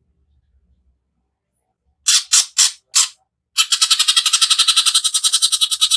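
Cucak ijo (green leafbird) singing its rough rapid-fire 'tembakan' calls. About two seconds in come four sharp notes in quick succession, then a long rapid chattering rattle of about ten notes a second.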